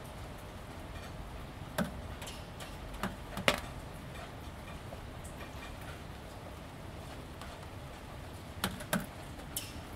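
Light steady rain with scattered drips ticking on wet corrugated plastic panels: a handful of sharp taps at uneven intervals, the loudest a little over three seconds in.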